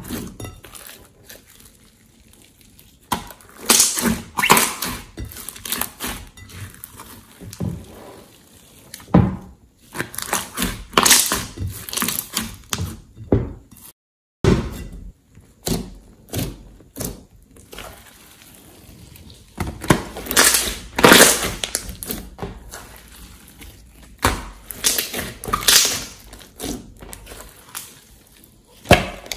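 Thick pink slime being squished, pressed and stretched by hand, giving irregular bursts of sticky clicking and popping, with a moment of silence about halfway through.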